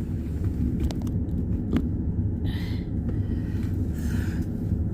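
Car running at low speed, a steady low rumble.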